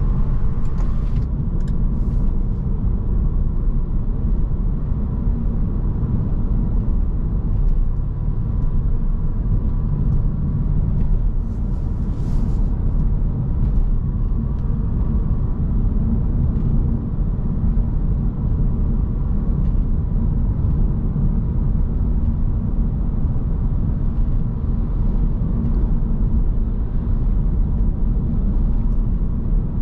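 Steady low rumble inside the cabin of a 2009 Audi S5 cruising on a wet road: its 4.2-litre V8 engine together with tyre noise. Brief hisses are heard about a second in and again about 12 seconds in.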